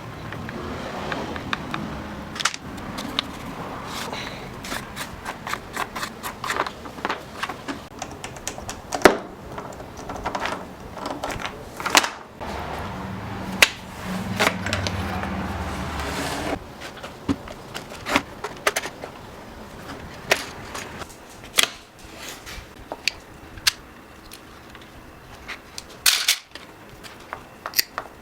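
Irregular clicks, taps and knocks of hand tools and the plastic and metal parts of a Stihl MS 170 chainsaw being handled and worked on, with a low steady hum for a few seconds around the middle.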